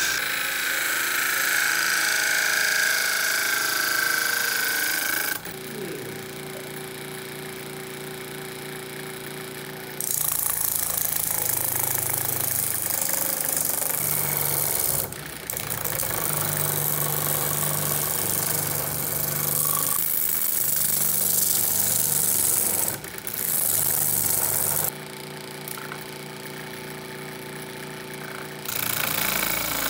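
Homemade bench sander, an electric motor spinning a sanding disc, running while a wooden piece is pressed against the disc: a loud sanding hiss. The hiss drops away to the motor's steady hum twice, about five seconds in and a few seconds before the end.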